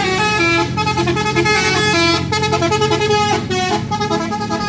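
Tour bus's telolet basuri multi-note musical horn playing a tune: a run of loud held horn notes stepping up and down in pitch, with short breaks between them.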